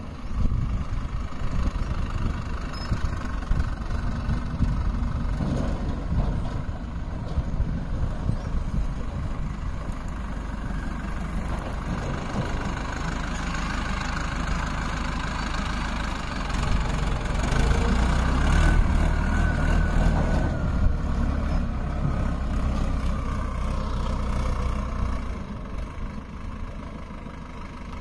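Heavy diesel engine running steadily, growing louder about two-thirds of the way in and easing off near the end.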